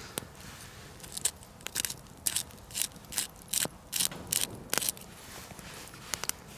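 Water poured from a plastic bottle into a metal camp pot, coming out in short splashing spurts about two or three times a second, with a few small crackles from the campfire.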